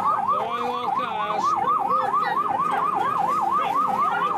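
Electronic warbling siren from a coin-operated kiddie ride's speaker, rising and falling about four times a second.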